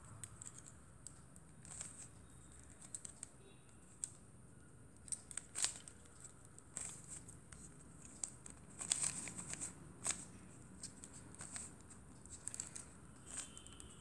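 Irregular quick clicks and clacks of a 3x3 Rubik's cube's plastic layers being turned by hand. The louder clacks come around the middle and about two thirds through.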